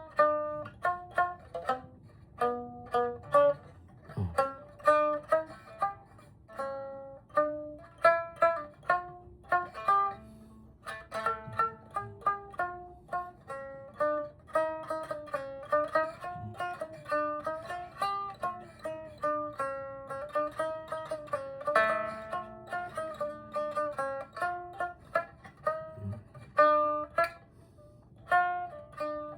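Biwa (Japanese lute) played as a simple melody, note by note: each pluck starts sharply and rings briefly, and some notes bend in pitch where the string is pressed down harder.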